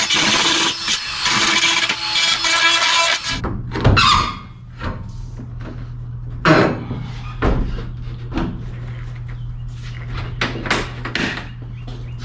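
Background music for about the first three seconds, then it cuts off suddenly to a steady low hum with scattered sharp knocks and clicks.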